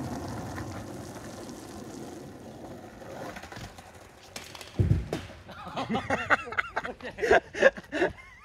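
Skateboard and longboard wheels rolling on wet asphalt, a steady rumble, then a heavy thud about five seconds in, followed by a run of short, loud knocks and cries.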